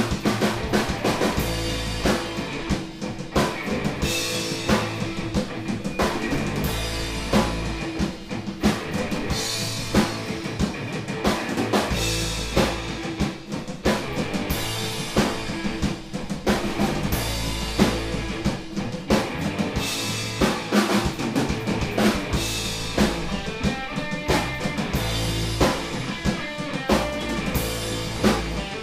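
Instrumental rock played live with no vocals: a Pearl drum kit keeps a steady beat of kick, snare and cymbals under electric guitars.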